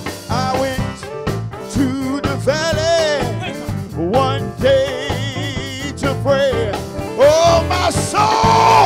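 Live gospel performance: a male lead singer holding long, wavering notes with vibrato over a band of electric bass and keyboard.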